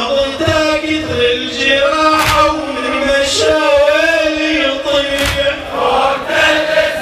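Men's voices chanting a Shia Muharram lament (latmiya) together, long sung lines that hold and bend in pitch.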